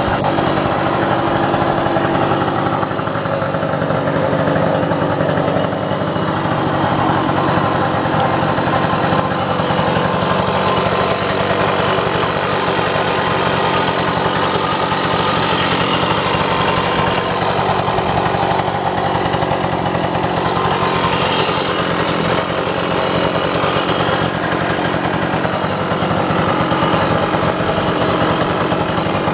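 Giulietta Super Sport moped's 50 cc Franco Morini two-stroke engine idling steadily.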